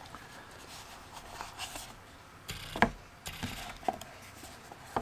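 Hands rummaging in a cardboard box and handling the packaging inside: light rustling with scattered small clicks and taps, the sharpest a little before three seconds in.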